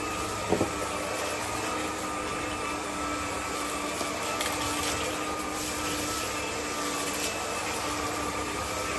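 Cordless stick vacuum cleaner (600 W) running steadily on its high setting, a continuous motor whine with a brief knock about half a second in.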